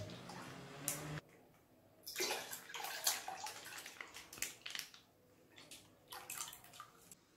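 Full cream milk pouring from a plastic sachet into a stainless steel pot of milk: a faint splashing, gurgling stream that comes in short uneven spurts after a brief lull about a second in.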